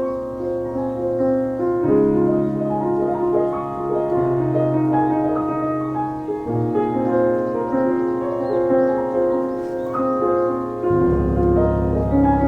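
Background music led by piano, with held chords changing every couple of seconds and a deeper bass coming in near the end.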